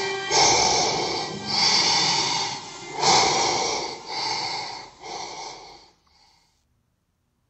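Heavy, rasping breaths, one roughly every second or so, growing weaker and stopping about six seconds in.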